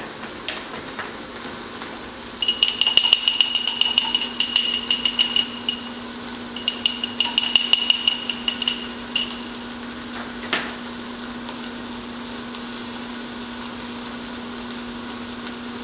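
A metal utensil whisking oil-and-vinegar dressing in a small glass jar, clinking rapidly against the glass in two bouts of a few seconds each, then one single knock.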